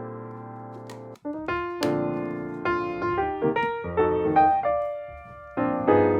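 Background piano music: a held chord fading away, then a run of notes and chords after a short break about a second in.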